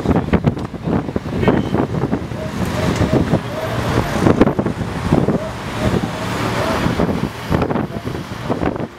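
Busy waterfront street ambience: road traffic and a crowd's voices, with wind buffeting the microphone.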